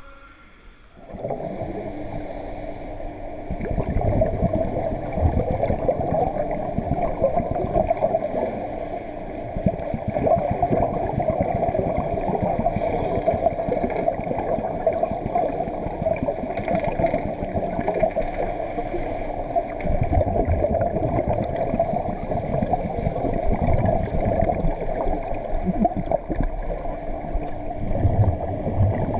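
Camera going underwater about a second in, then a steady muffled gurgling water noise from the pool, with a few short hissing bursts of scuba divers' exhaled bubbles.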